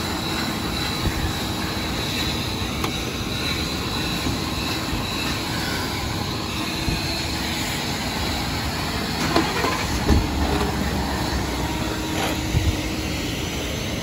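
Wet/dry shop vacuum running steadily with a faint whine, its hose vacuuming out a vehicle's interior.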